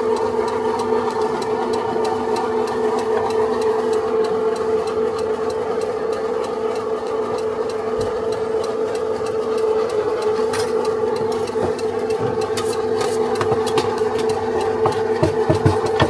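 A machine's motor running with a steady, unchanging hum, with light ticks and a few knocks in the second half.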